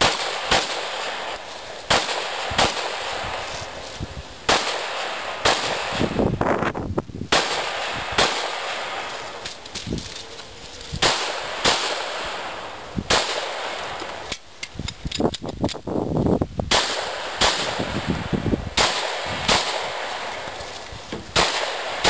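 A string of pistol shots from a handgun fired at targets, each a sharp crack with a short echo, coming about once a second with a few short pauses, including a brief lull about two-thirds of the way through.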